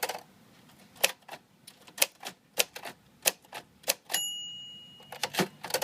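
Royal Futura 800 manual typewriter being typed slowly, single sharp key strikes about every half second to second. About four seconds in its margin bell dings once and rings on for about a second as the line nears its end.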